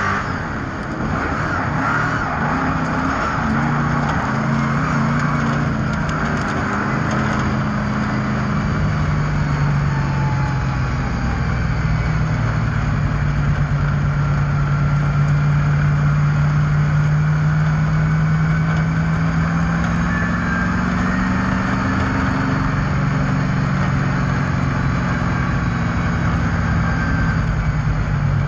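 Speedway cars' engines running on the track, a loud steady drone whose pitch slowly rises and falls.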